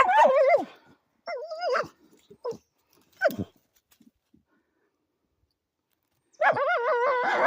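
A dog whining with a high, wavering pitch in several short bouts, then one longer whine near the end. These are the eager whines of a dog fixed on a muffler where she thinks an animal is hiding.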